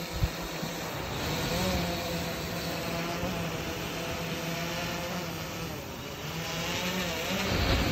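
SwellPro SplashDrone 3+ quadcopter hovering overhead, its propellers giving a steady buzzing hum whose pitch wavers as it manoeuvres. A low rumble of wind on the microphone runs underneath, and there is one sharp thump about a quarter second in.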